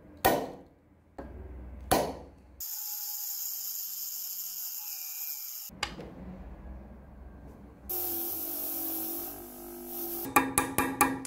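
Workshop tool sounds in quick succession: two sharp hammer blows on a steel centre punch, then a power tool running with a high-pitched whine for about three seconds. Later a bench grinder wheel grinds steel for a couple of seconds, and near the end a quick run of regular sharp knocks begins.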